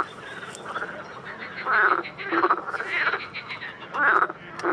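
A chorus of frogs croaking: short rasping calls that follow one another every second or so and overlap.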